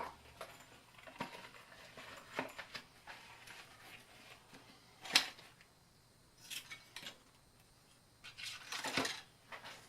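Scattered light clicks and clatters of small hard objects being handled, with one sharper click about five seconds in and a quick cluster near the end.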